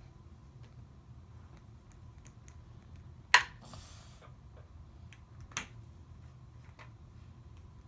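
Light clicks and taps of plastic Play-Doh toys being handled, with one sharp click about three seconds in followed by a brief rustle, and another click about two seconds later.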